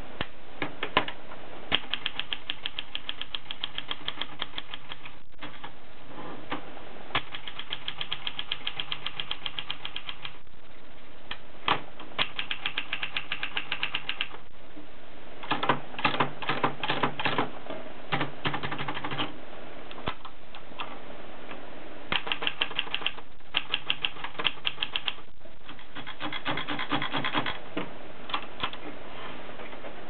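Adler Tippa S manual portable typewriter being typed on: runs of rapid key strikes and typebar clacks, each lasting a few seconds, separated by short pauses.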